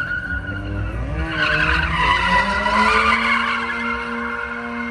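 A car drifting in circles with its tyres squealing on tarmac. Its engine revs climb about a second in, then hold high and steady while the tyres spin and smoke.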